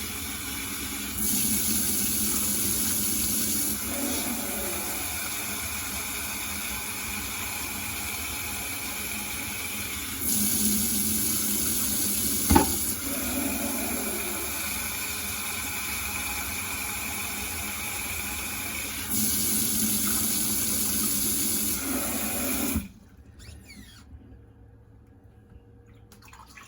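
Water running steadily from a tap. The flow grows louder three times, there is one sharp knock about halfway through, and the water cuts off suddenly near the end.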